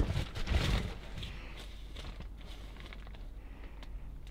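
Cardboard boxes and paper rustling and scraping as junk is shifted by hand, busiest in the first second, then faint scattered handling noises.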